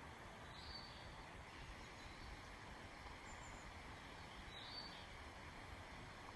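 Quiet outdoor ambience with a faint steady hiss, broken by two short, high bird calls, one about half a second in and one near five seconds in, and a fainter chirp between them.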